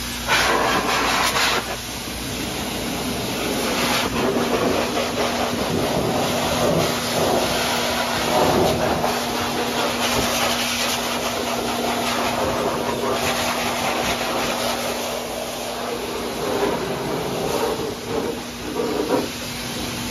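Pet blow dryer running: a steady motor hum under a loud rush of air, the rush wavering as the nozzle moves over a wet dog's coat.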